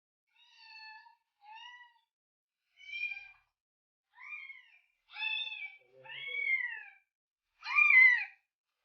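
A cat meowing: seven short meows in a row, each rising and falling in pitch, the later ones louder.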